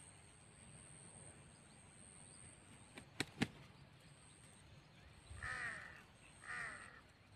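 Two sharp clicks about three seconds in, then two harsh bird calls about a second apart near the end, each with a falling tail.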